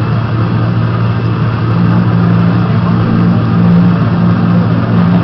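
A loud, steady low droning hum over a rushing noise, with a second, higher hum growing stronger about two seconds in.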